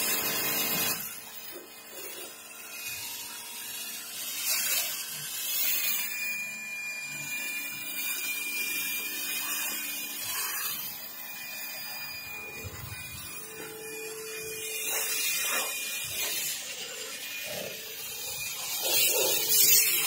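Electric pressure washer running, its pump motor humming steadily while the water jet hisses against a car's side panels.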